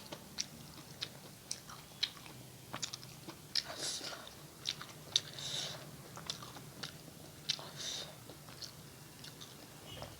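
Close-up chewing of a mouthful of rice and fish curry: irregular wet mouth clicks and smacks, with a few louder slurpy smacks, over a faint steady low hum.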